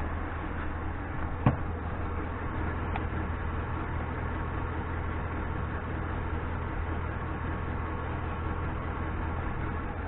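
Ford Crown Victoria Police Interceptor's 4.6-litre V8 idling steadily and evenly, its cylinder 5 misfire cured by a replacement ignition coil. A single sharp click about a second and a half in.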